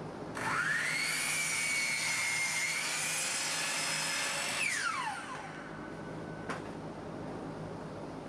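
Electric miter saw spinning up with a rising whine, running steadily for about four seconds as it cuts a board, then winding down with a falling whine once the trigger is released. A single sharp click follows about two seconds later.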